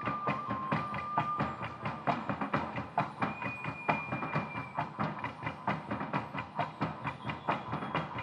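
Fast, steady percussion rhythm accompanying a stage dance, with a high held note over the first two seconds and a higher one for about a second and a half in the middle.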